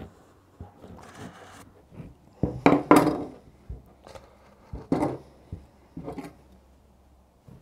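A large kitchen knife sawing through the crust of a round loaf of grey bread in scratchy rasping strokes, loudest around three seconds in as it cuts through. A few shorter scrapes and knocks follow as the cut-off top is lifted away and the knife is put down on the wooden table.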